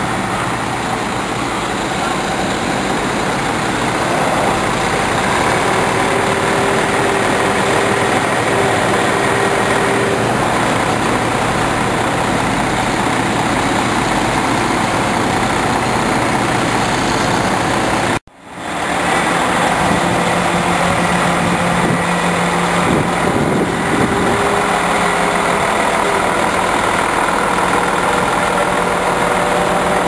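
Heavy engine of the crane and tree-removal machinery running steadily at idle, with a brief dropout a little past the middle.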